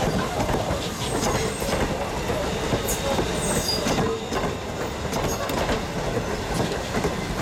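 Passenger coaches of a steam train rolling past close by over a road grade crossing: steel wheels clacking over rail joints in a steady rumble, with a few brief wheel squeals about three to four seconds in.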